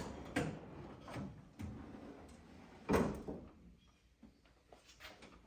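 A few clunks and knocks, the loudest one about three seconds in.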